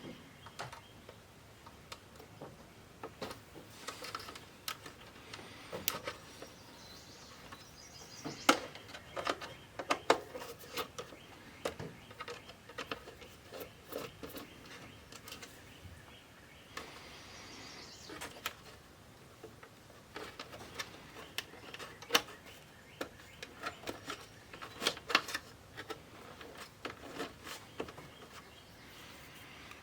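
Irregular light clicks, taps and rattles of small parts and tools being handled, a few of them sharper knocks.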